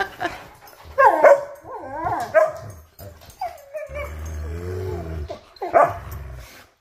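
Dogs vocalizing while they play-wrestle: a string of short whining, yipping calls, with a longer, lower growling call in the middle.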